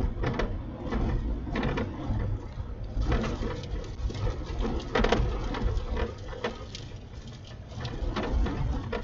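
Strong wind buffeting a moving vehicle close to a tornado's circulation: a heavy, uneven low rumble with irregular knocks and rattles scattered through it.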